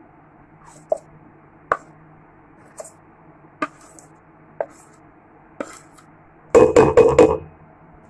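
A knife scraping cake batter out of a steel bowl into a steel baking vessel, with a sharp tap of metal on metal about once a second. Near the end comes a short, loud clatter of several quick knocks.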